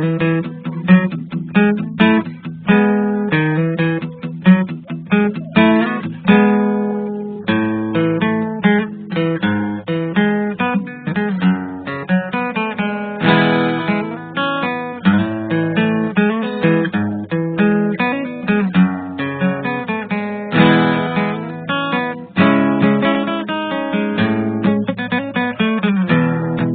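Acoustic guitar music, plucked and strummed, with notes struck in quick succession.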